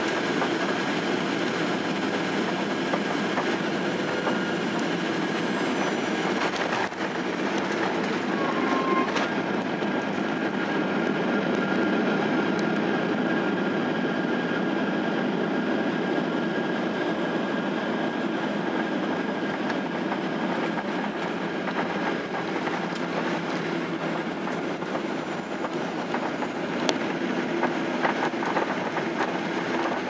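Cabin noise of a Boeing 737-800 landing on a wet runway: the steady rumble of its CFM56 engines, wheels and airflow, with a couple of knocks about seven and nine seconds in. The noise swells a little around ten seconds in as the jet rolls out at speed, then eases as it slows.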